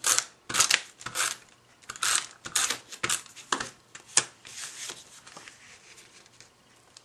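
Cardstock and paper rustling and scraping in a run of short, sharp bursts as card pieces are handled and stuck down, thinning out over the last couple of seconds.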